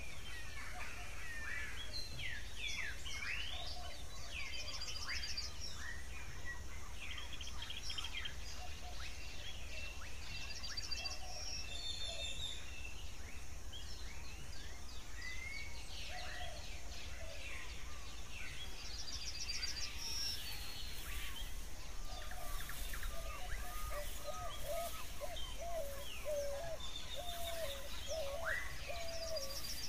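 Outdoor birdsong ambience: many birds chirping, whistling and trilling over one another above a steady low rumble. A rapid high trill recurs every several seconds, and a lower repeated warbling call comes in during the last third.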